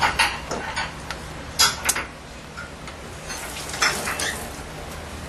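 A utensil clinks and scrapes against a hammered aluminium pan while broth is scooped out for tasting: sharp knocks just after the start, around two seconds in and again about four seconds in, over the steady bubbling of a simmering pot.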